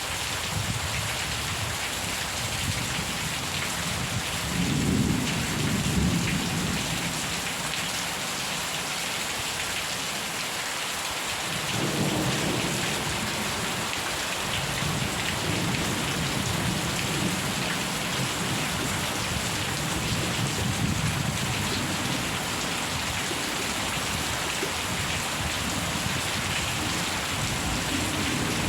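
Steady rain with rolling thunder: a low rumble swells about five seconds in, and a longer stretch of rumbling rises and fades in waves from about twelve seconds on.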